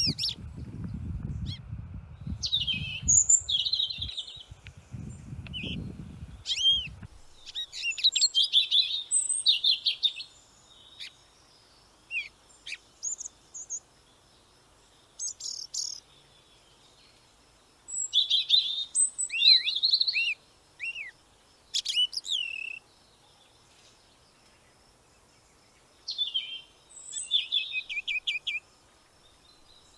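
Small birds chirping and twittering in bursts of high notes, some sweeping down in pitch, separated by short quiet gaps. A low rumble runs under the first several seconds.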